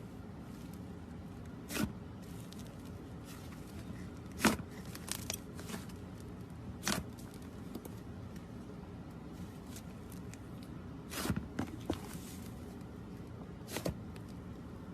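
Slime being handled, giving scattered short sticky pops and clicks, about seven, over a steady low background noise.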